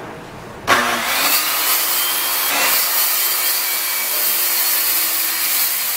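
Handheld circular saw spins up about a second in and rips steadily through a sheet of 3/4-inch plywood, the blade whining as it cuts.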